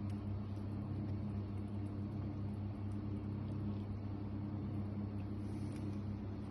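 Steady low hum with a few even tones that hold the same pitch throughout, like a small motor or electrical appliance running.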